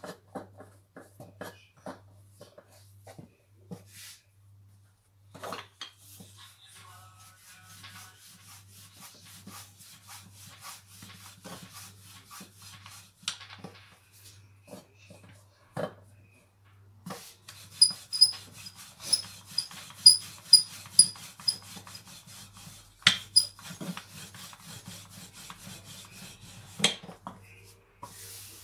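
Hands pressing, patting and rubbing a flour-dusted ball of dough on a wooden table, with scattered light knocks and rubbing. About two-thirds of the way through comes a run of sharper taps with short high squeaks.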